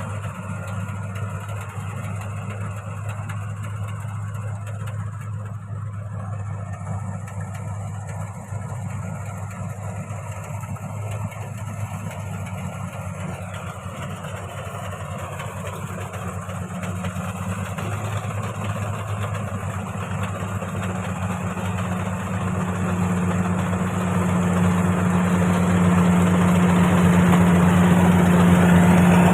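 Rice combine harvester's engine running with a steady low drone, growing louder through the second half.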